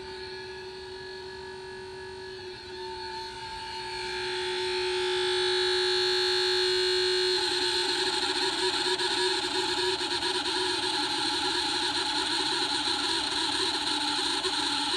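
Cooling fan of a Morimoto 2Stroke 2.0 H11 LED headlight bulb running with a steady whine. It grows louder and hissier about four seconds in and turns rougher and fluttering about halfway through. The fan motor appears to be defective, loud enough to be heard over the engine.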